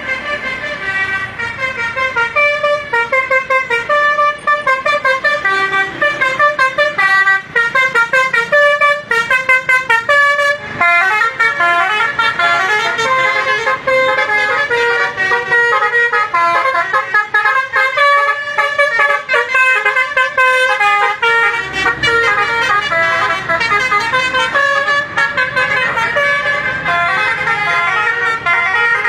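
Basuri telolet horn, a multi-tone musical bus horn, playing a long tune of quick, changing notes, with a low engine rumble joining in about two-thirds of the way through.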